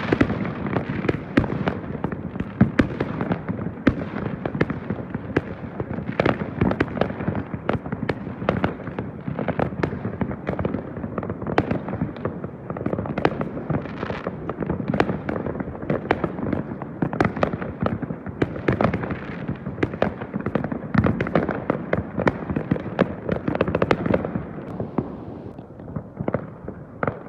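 Fireworks going off in a dense, continuous barrage: rapid bangs and crackling pops overlapping one another, easing off slightly near the end.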